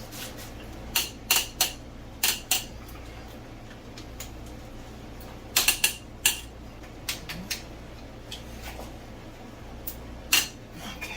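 Metal hand tools clinking and clanking irregularly against engine parts, with a dozen or so sharp clinks in small clusters. A steady low hum from an air conditioner runs underneath.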